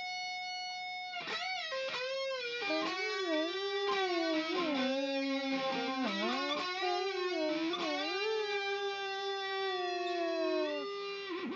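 Electric guitar sustaining a note that is bent and wobbled with the whammy bar. The pitch holds steady for about a second, then repeatedly dips and swoops before the note fades near the end.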